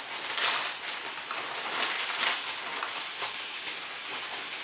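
Clear plastic vacuum-packing crinkling and rustling as it is handled and pulled back off a mattress, with irregular crackles that are loudest in the first half.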